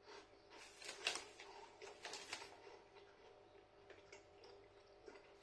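Faint, light crackling clicks of a person chewing airy corn puffs, most of them between about one and two and a half seconds in.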